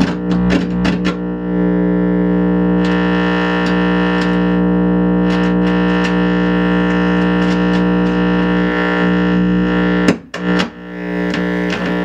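Yamaha G100-410 100-watt 4x10 guitar amp putting out a steady distorted drone through its speakers, broken by crackles and pops as the knobs are turned. It cuts out suddenly about ten seconds in and comes back near the end. The crackling is the sign of dirty, scratchy potentiometers, worst on the main volume.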